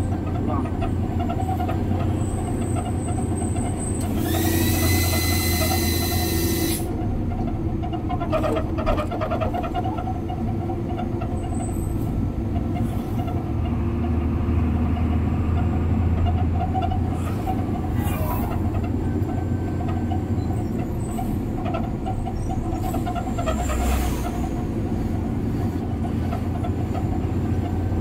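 Concrete mixer truck's diesel engine running steadily on the road. About four seconds in comes a loud, high-pitched blast lasting about two and a half seconds, and there are a few shorter, fainter high bursts later on.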